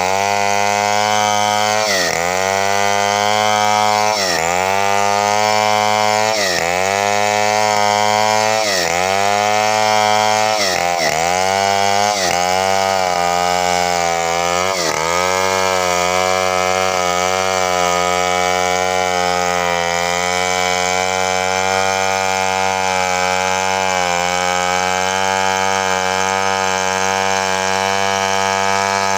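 A chainsaw cutting a coconut palm trunk, running continuously at high speed. For the first half its pitch drops sharply and climbs back about every two seconds, as the engine bogs under the cut and recovers. It then runs at a steady pitch.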